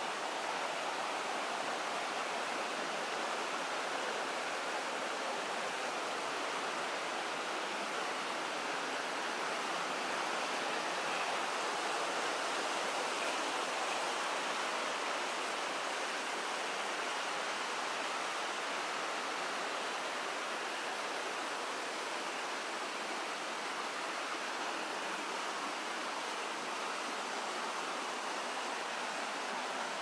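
Steady rush of water from a rocky stream and waterfall, an even, unchanging sound of flowing water.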